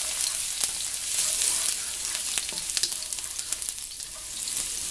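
Minced garlic frying in hot olive oil in a wok: a steady sizzle with many small crackling pops, easing a little after the middle.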